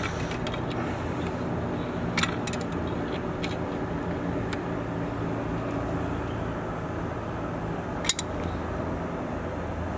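A few short metallic clicks as tongue-and-groove pliers grip and turn a brass hose fitting being tightened onto a pipe; the sharpest click comes near the end. A steady low hum runs underneath.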